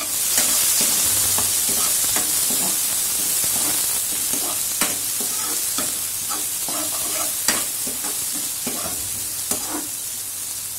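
Chopped onion, green chilli and grated ginger sizzling in hot oil with cumin seeds in a kadhai, stirred with a metal spoon that clinks and scrapes against the pan. The sizzle is loudest in the first couple of seconds, just after the onions go in, and eases a little after that.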